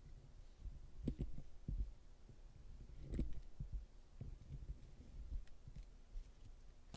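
Faint scattered low knocks, with a sharper click about a second in and another around three seconds in.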